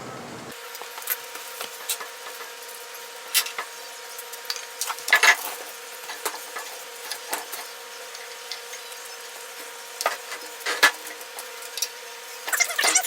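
Irregular metallic clinks and knocks of steel parts being handled and fitted during front wheel bearing and brake drum installation, over a faint steady background hiss. The loudest knocks come about five seconds in and near eleven seconds, with a quick flurry of clinks near the end.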